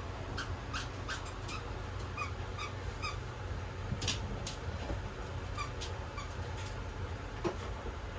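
Small-room kitchen sounds: scattered light clicks and squeaks, a few a second, over a steady low hum.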